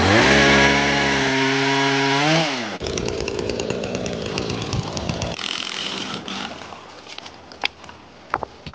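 Two-stroke Husqvarna chainsaw revving up and held at full throttle, then falling back and breaking off about two and a half seconds in. It is followed by rushing, splashing creek water close by and a few sharp knocks near the end.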